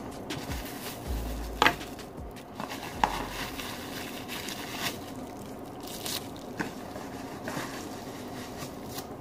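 Cardboard box and plastic packaging being handled: plastic crinkling and cardboard scraping, with a couple of sharper clicks in the first few seconds.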